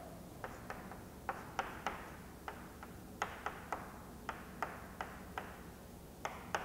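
Chalk tapping on a chalkboard while words are written: a string of short, faint clicks, about three a second and unevenly spaced.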